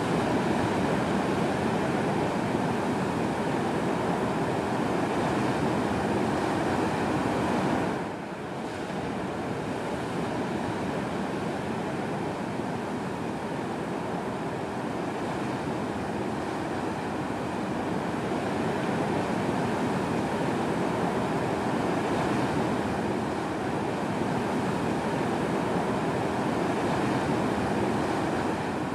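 Ocean surf from a hurricane swell: a steady rush of breaking waves and wash, dipping briefly in level about eight seconds in.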